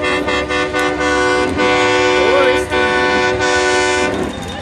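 Marching band playing long, loud held chords over repeated drum strikes, with short breaks between phrases.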